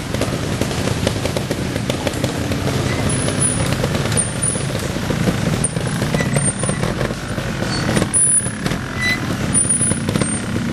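Vintage trial motorcycle engine running, with a rapid, continuous beat of firing strokes.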